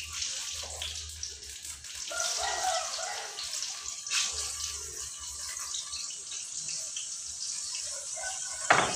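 Hot oil sizzling steadily as tempeh fries in a pan on a gas stove. There is a single sharp clank of a utensil or plate near the end.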